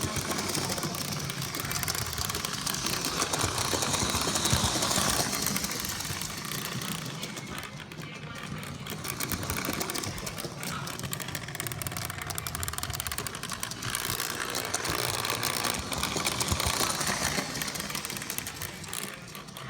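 Lionel 8204 model train locomotive running, its electric motor and gearing giving a continuous mechanical whir and rattle that swells and eases. This is the weird noise the owner is trying to track down.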